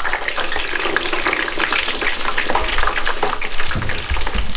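French fries just lowered in a wire basket into hot oil in an electric deep fryer, the oil bubbling and sizzling hard with a dense crackle.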